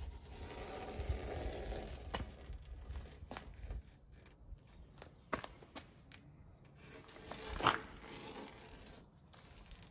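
Masking tape being peeled off a freshly siliconed wing joint: a drawn-out ripping and rustling, with one brief louder rip near the end.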